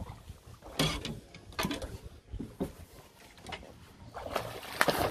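A few scattered knocks and clatters of gear being handled on a small boat, over low background noise.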